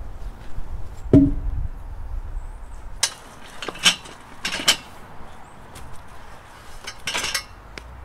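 A dull knock about a second in, then several sharp metallic clinks and rattles from the chain and steel frame of a wheeled log arch being set over a log.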